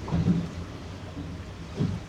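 Wind rumbling on the microphone aboard a small boat on a choppy sea, swelling louder twice, once just after the start and once near the end.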